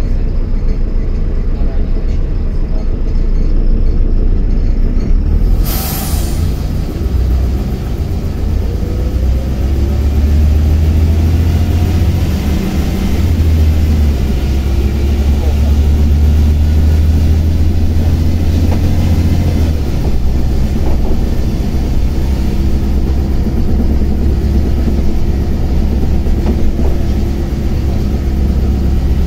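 Inside a moving LiAZ-5292.22 low-floor city bus: a heavy, steady rumble of the engine and road. There is a short sharp hiss about six seconds in, then a faint rising whine from the drivetrain as the bus gathers speed, and the rumble is heaviest in the middle of the stretch.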